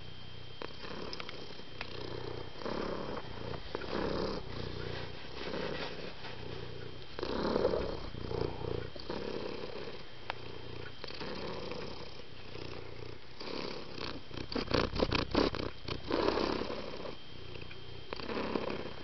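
Domestic cat purring, the rumble swelling and fading with each breath in a regular rhythm. About three-quarters of the way through comes a quick run of sharp clicks.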